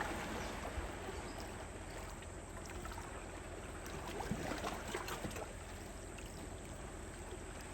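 Faint, steady sound of seawater lapping and trickling among shoreline rocks, with a few faint ticks.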